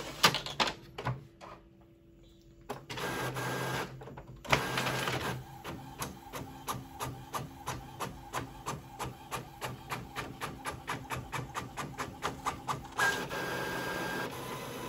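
Epson WorkForce WF-7720 inkjet printer running a print job. After a few clicks and a short pause it starts with bursts of mechanical whirring. Then it settles into a regular clatter of about four clicks a second as it prints, and near the end a steady whirr as the printed sheet is fed out.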